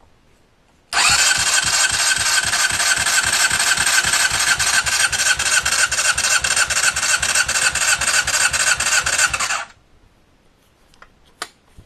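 Motorcycle engine cranked over by its electric starter for a compression test, spark plugs disconnected and throttle wide open. It is a steady, rhythmic cranking with an even beat from the compression strokes, starting about a second in and stopping abruptly near the end.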